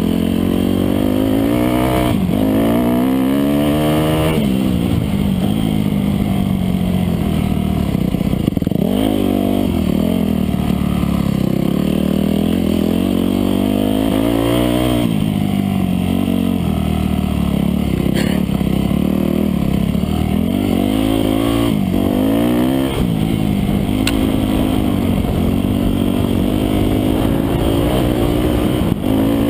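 Off-road dirt bike engine at race pace, its note climbing under throttle and dropping back again and again as the rider shifts and slows for turns.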